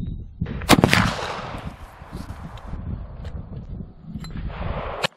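A single shot from a J. P. Sauer und Sohn single-shot stalking rifle firing a black-powder 11 mm Mauser cartridge, less than a second in, followed by an echo that dies away over about a second. A second rush of noise builds near the end and is cut off by a sharp click, over a low wind rumble.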